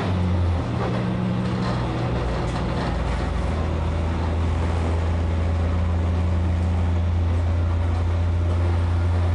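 Diesel railcar running at speed: its engine gives a steady low drone that shifts in pitch about half a second in, over a constant rumble of wheels on rail.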